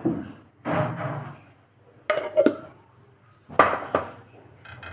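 Kitchen clatter of dishes and utensils: several separate knocks and clinks with short pauses between them.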